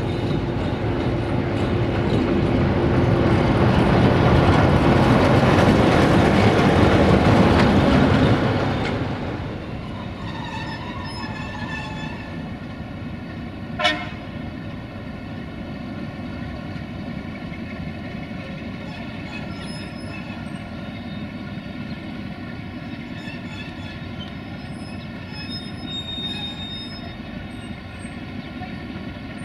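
A 060-DA (LDE2100) diesel-electric shunting locomotive with a Sulzer diesel engine passes close by. Its engine and wheels are loud for the first eight or nine seconds, then drop to a steady, quieter engine hum. About 14 seconds in there is one brief, sharp sound.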